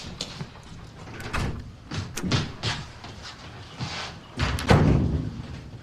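A string of short knocks and bumps from things being handled, with a heavier thud about four and a half seconds in.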